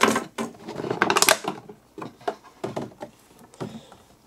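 Stiff clear plastic packaging crackling and crinkling as a statue is pulled out of it by hand, loudest in the first second and a half, then a few lighter clicks and taps.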